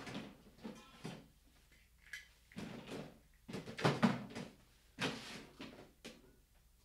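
Rummaging out of view: about half a dozen short knocks, scrapes and rattles of things being moved about and handled, the loudest about four seconds in.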